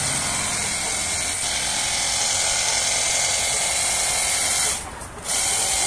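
Delton cordless high-pressure water gun running: its battery-powered pump motor whines steadily under the hiss of the water jet. It cuts out for about half a second roughly five seconds in, then starts again.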